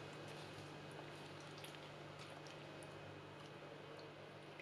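Faint wet squelching and small ticks of a gloved hand massaging thick marinade into raw chicken pieces, over a low steady hum.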